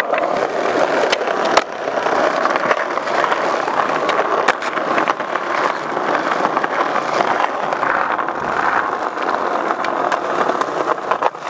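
Skateboard wheels rolling over brick paving with a steady, gritty rumble, broken by several sharp clacks of the board popping and landing tricks. Near the end the board grinds along a concrete ledge.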